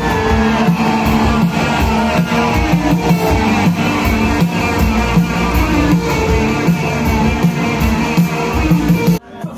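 Live rock band playing an instrumental passage, with guitar and drum kit, recorded loud on a phone. The sound cuts off abruptly about nine seconds in, and music resumes at once.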